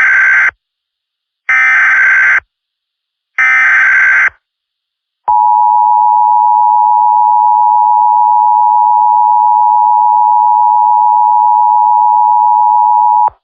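Emergency Alert System SAME header: three one-second bursts of screeching digital data tones, then after about a second's gap the EAS two-tone attention signal (853 and 960 Hz together), a steady loud tone held for about eight seconds that cuts off abruptly. It announces a National Weather Service tornado warning.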